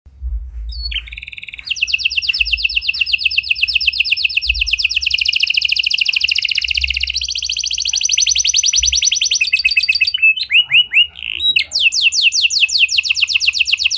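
Domestic canary singing in long, rapid trills, each rolling on for a few seconds before switching to another. About ten seconds in there is a short break of separate notes before a new trill starts.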